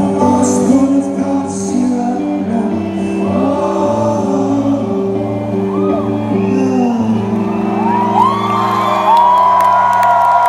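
Rock band playing the closing bars of a song in concert: held guitar and bass chords under singing, with shouts and whoops from the audience. Near the end, long high voices hold over the final chord.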